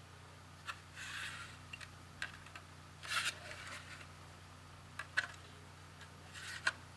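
Hands handling a small desktop network switch, fingers rubbing and gripping its case as it is turned over: a few soft rubs and several light clicks.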